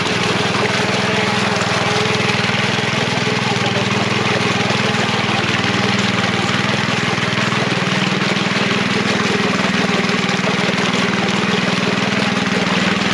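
Walk-behind power tiller's engine running steadily under load as its rotary blades churn through flooded paddy mud, an even engine drone with no change in speed.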